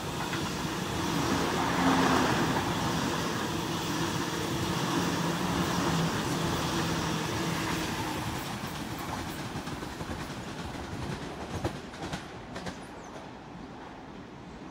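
Sydney Trains Waratah double-deck electric train passing through the station, with a steady hum and rail noise that peak about two seconds in and fade after about eight seconds. A few sharp wheel clicks come near the end.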